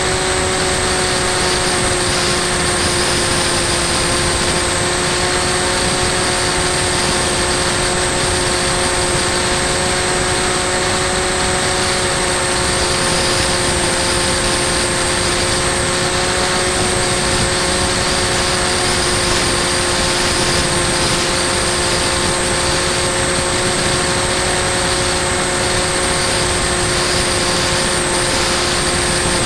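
Bixler 2 RC plane's electric pusher motor and propeller running at a steady throttle in flight: an even whine of several held tones with a thin high tone above, over a dense rush of wind on the microphone.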